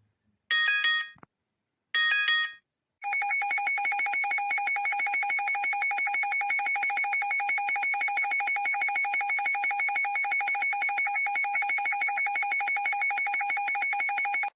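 Emergency Alert System-style alarm: two short buzzy header-data bursts, then about three seconds in a continuous electronic alert tone starts, pulsing rapidly and evenly.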